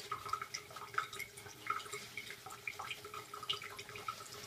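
Plisson synthetic shaving brush working wet soap lather on the face, a soft, irregular wet crackling as freshly added water is worked in, with a tap trickling underneath.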